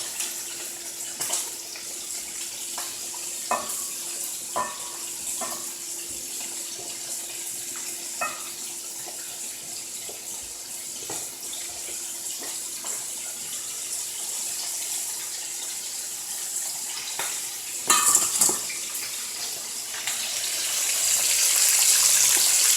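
Floured chicken wings frying in hot vegetable oil in a wok: a steady sizzle with scattered light knocks. Near the end there is a short burst of louder clatter, and then the sizzle swells louder.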